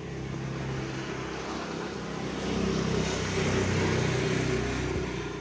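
A motor vehicle passing by, its engine hum building up and loudest over the second half, starting to fade near the end.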